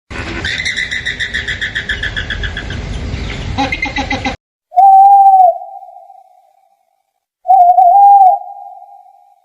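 Bird calls: a fast chirping trill for about four seconds, then two loud, steady, whistled hoots a little under three seconds apart, each fading out.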